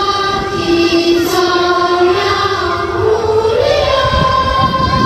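A choir singing with backing music, holding long notes; the melody rises about three seconds in.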